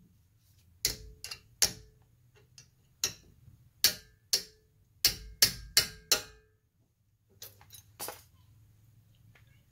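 Hammer striking the end of a combination wrench, about ten sharp metallic blows in uneven groups, each with a short ring, then a few lighter taps near the end. The blows are meant to break loose a stubborn brake caliper bolt.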